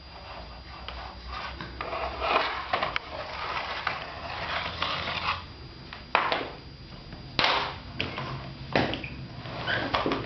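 Vacuum cleaner being handled by a toddler: irregular plastic knocks, clatters and scraping, with several sharp knocks in the second half.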